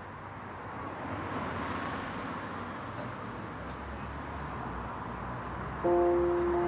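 Steady street traffic noise with vehicles passing. Near the end a loud, steady held note starts abruptly.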